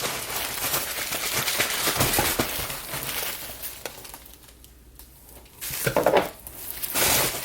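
Rustling and crinkling of packaging with light knocks as a box of packed candles is rummaged through. It dies down for about a second and a half after four seconds, then another burst of handling noise follows.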